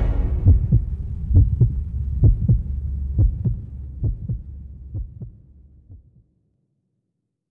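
A heartbeat sound effect closing out a song: a double thump, lub-dub, about once a second, six times over a low hum, fading away.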